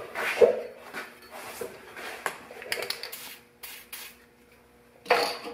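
Several short squirts of an aerosol lubricant can, sprayed onto the painted clamp bolts of an MTV park brake chamber to free them for removal, bunched together about three seconds in. There is a knock or two near the start and near the end.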